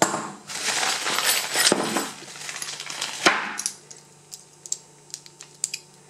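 Packaging rustling as a padded, plastic-lined bag is pulled about, then a sharp clack and a run of light metallic clicks and clinks as small locks and their keys are handled.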